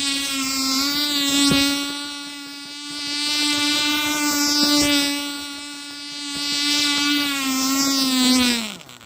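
Cox .020 nitro glow engine on an RC airboat running at a steady high pitch, growing louder and quieter several times as the boat moves nearer and farther. Near the end the pitch sags and the engine stops.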